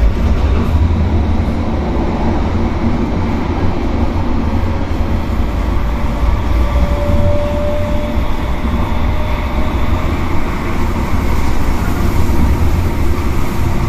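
Tram-train running at speed on open railway track, heard from inside the front cab: a steady rumble of wheels on rail, with a brief faint whine about halfway through.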